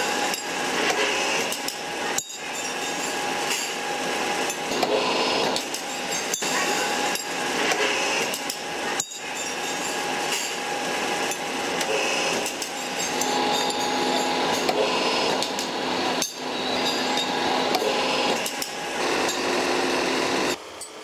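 A sprocket tooth-cutting machine running, its cutter working a steel sprocket blank. The sound is a steady, dense metallic clatter over a constant machine hum, dipping briefly a few times.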